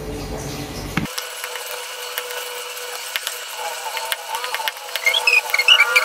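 A drinking glass rolled back and forth over dough to flatten it on a plastic cutting board, with irregular light clicks and knocks as the glass touches the board.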